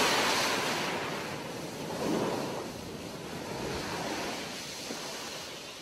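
Shallow surf washing up over sand at the water's edge, surging again about two seconds in and fading gradually away.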